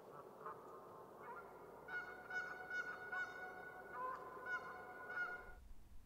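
Geese honking, a string of repeated, overlapping calls over a faint steady hiss; the calls cut off suddenly near the end.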